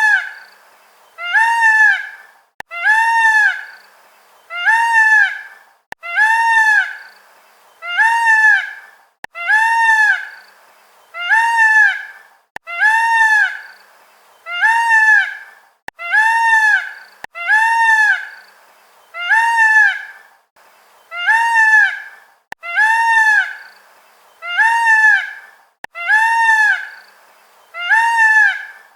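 Indian peafowl (peacock) calling over and over: a single loud call that rises and falls in pitch, repeated at an even pace about every one and a half seconds.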